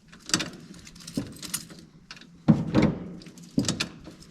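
Keys jangling and a few separate clicks and knocks as the ignition is tried, with no starter cranking and no engine: nothing happens because one battery lead is not connected.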